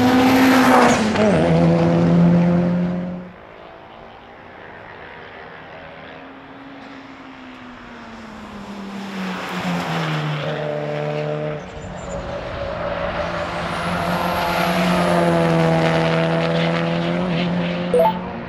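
Turbocharged 4G63 inline-four of a Mitsubishi Lancer Evolution VIII (CT9A) race car passing at speed. It is loud at first, its note falls and then fades away about three seconds in. After a quieter stretch the note rises again twice, with a sudden drop between the two rises, and there is a short sharp click near the end.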